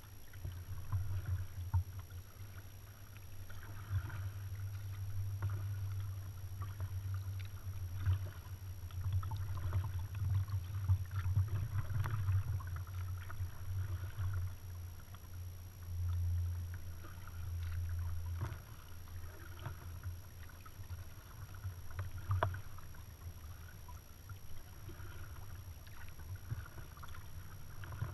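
A kayak being paddled on calm water: paddle blades dipping and splashing every couple of seconds, with small knocks, over a low rumble. It grows quieter about two-thirds of the way through.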